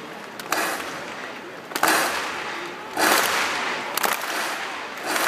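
Large stadium crowd clapping and cheering in surges about once a second, growing louder toward the end.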